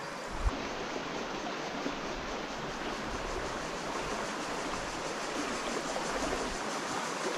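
Shallow mountain stream running steadily over stones and pebbles, a constant rushing wash of water, with a single soft knock about half a second in.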